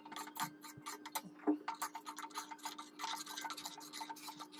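A metal ladle stirring porridge in a stainless steel pot, clicking and scraping against the pot many times in quick, uneven succession. A faint steady hum runs underneath.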